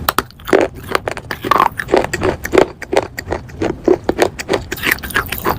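Someone biting and chewing pieces of fired clay pot: a quick run of sharp cracks and gritty crunches, several a second.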